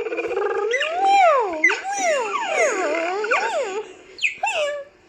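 Overlapping whining cries that slide up and down in pitch for about four seconds, followed by two shorter cries that rise and then fall near the end.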